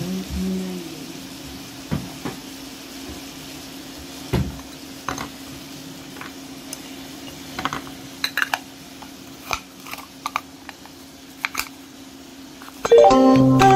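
Scattered light clicks and knocks of hands and a utensil around a stone-coated wok of veal pieces browning on an induction hob, over a steady low hum. Near the end a loud, short jingle of stepped notes cuts in.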